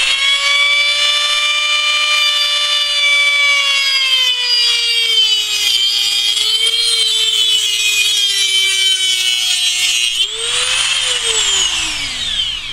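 Dremel rotary tool with a cutoff wheel whining at speed, its pitch sagging under load as the wheel cuts into a metal tube. About ten seconds in the tool is lifted off, briefly speeds back up, then is switched off and winds down with a falling whine.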